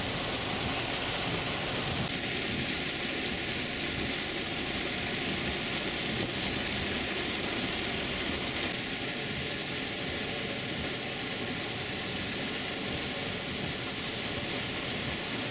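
Heavy rain pattering steadily on a car's roof and windows, heard from inside the cabin as an even, unbroken hiss.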